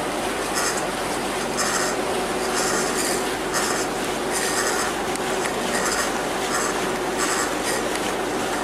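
Harbour ferry under way: a steady engine drone with a held hum, under water rushing along the hull, with irregular bursts of hiss every half second to a second.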